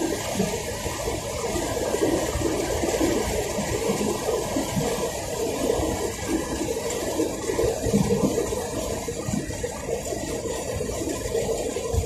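Steady rushing road and wind noise from a moving car.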